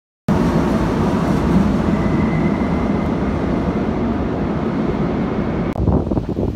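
Commuter train running past a station platform: a loud, steady rumble and rush with a faint high whine. It cuts off abruptly near the end and gives way to gusty wind buffeting the microphone.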